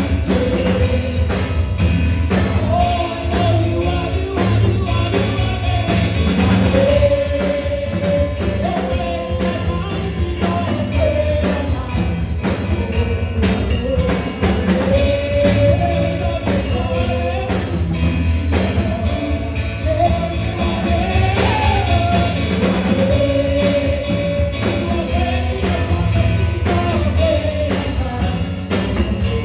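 Gospel praise-and-worship song: a lead vocal melody sung over a band with drum kit and bass keeping a steady beat.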